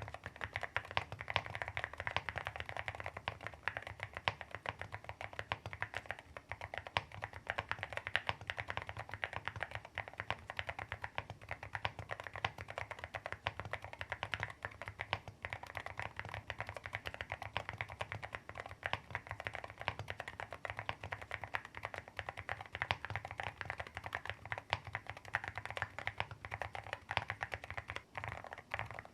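Continuous fast typing on an AKKO MU01 mechanical keyboard with a carved walnut wood case: a dense, unbroken stream of keystrokes.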